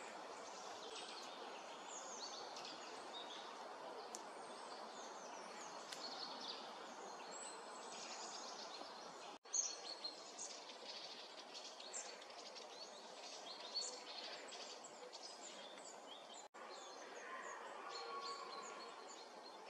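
Woodland ambience: small birds chirping and calling in short high notes over a steady background hiss. The sound drops out for a moment twice.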